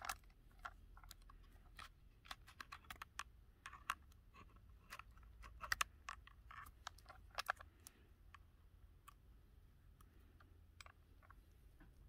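Small clicks and taps from a leather knife sheath being handled, its press-stud retaining strap unsnapped and snapped shut. The clicks come thickly for about eight seconds, with the sharpest a little before six seconds and again about seven and a half seconds in, then thin out.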